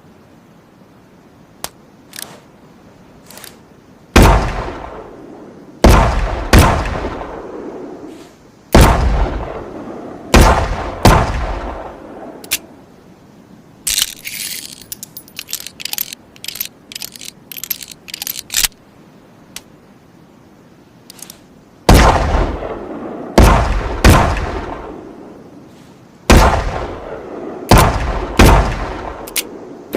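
Chiappa Rhino 60DS revolver firing two strings of about six shots each, at uneven intervals of about a second or two; each shot is a sharp bang with a ringing tail. Between the strings comes a run of light metallic clicks and rattles.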